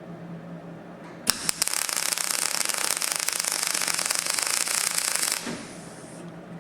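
MIG welder laying a plug weld: the arc strikes about a second in, crackles steadily for about four seconds, then cuts off sharply. The power setting has just been raised from 2 to 3 to bring up a wire speed that was a little low, and this run sounds much better.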